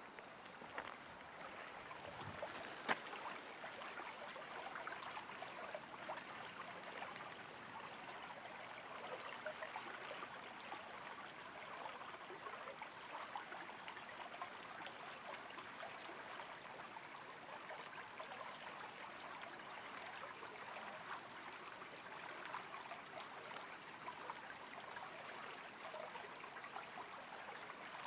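Small creek flowing steadily over a gravel bed, an even rush and trickle of water. A single sharp knock about three seconds in.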